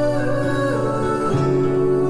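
Background music: an acoustic-guitar-led song, with no vocal line at this point.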